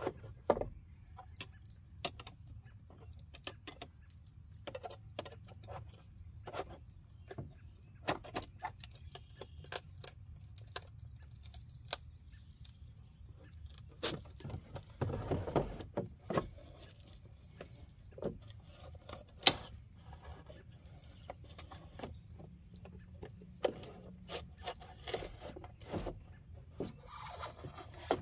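Scattered clicks, taps and knocks of a plastic truck tow mirror housing and its glass being handled and worked at on a wooden bench, with one sharper knock about two-thirds of the way through.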